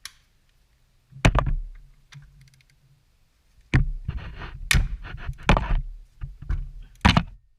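Hand tools knocking and clicking against metal parts of a car, about five sharp knocks with scraping between the middle ones.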